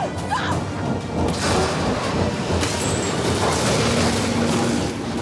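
Film sound design of a tornado striking buildings: a dense rush of wind and flying debris that builds about a second in and holds, with a music score underneath.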